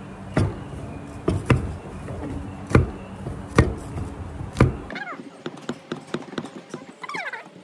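Pestle pounding curry paste ingredients in a mortar: about six heavy, irregular thuds. Near the end, lighter taps and a few short high chirps.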